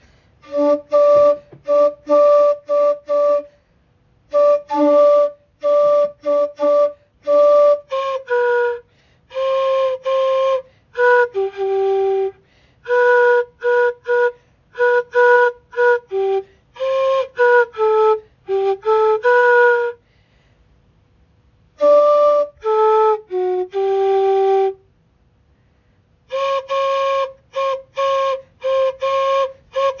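A flute-like woodwind playing a slow melody of short, repeated notes in phrases, with brief silent pauses between phrases, notably around 20 to 22 seconds in and again near the end.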